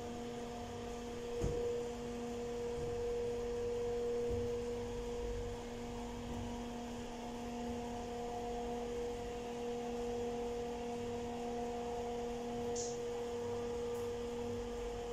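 A steady electrical hum: a low pitched drone with evenly spaced overtones, with a soft knock about one and a half seconds in and a brief faint swish near the end.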